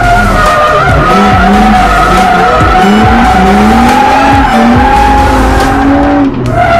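BMW E36 drift car's straight-six engine revving up and down under throttle, its tyres squealing steadily as the car slides sideways, heard from inside the cabin. The sound dips briefly near the end.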